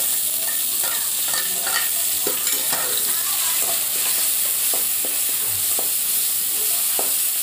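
Onions, green chillies and freshly added chopped tomatoes sizzling steadily in hot oil in a metal kadai, while a metal spoon stirs them with scattered scrapes and clinks against the pan.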